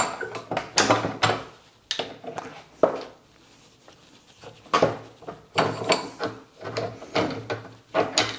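Clunks, clicks and metallic knocks of a propshaft universal joint and its yoke being handled and pressed together in a steel bench vice, with the vice handle being wound. The sounds come in irregular clusters, with a quieter spell a few seconds in.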